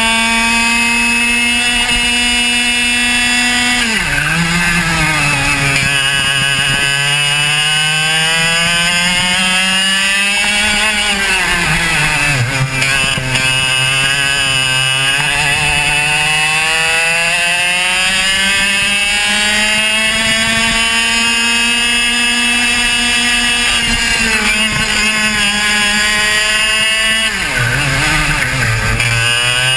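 Two-stroke racing kart engine at full throttle. Its pitch drops sharply three times, about 4, 12 and 27 seconds in, as the kart brakes for corners, then climbs steadily as it accelerates out.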